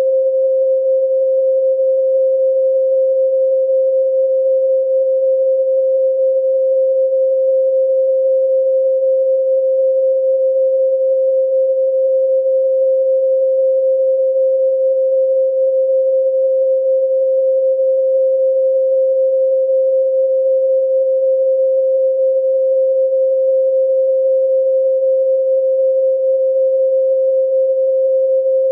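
A steady pure sine tone at 528 Hz, held unchanging at one pitch and level.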